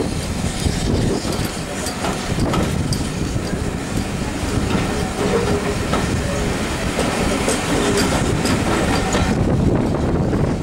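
Heritage railway passenger train in motion, heard from aboard: a steady rumble from the running gear with scattered clicks as the wheels clatter over the rail joints.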